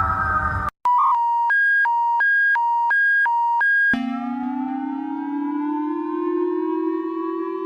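Electronic emergency-alert tones. A high and a low tone alternate about three times a second for roughly three seconds, then give way to a sustained siren-like chord that slowly rises in pitch.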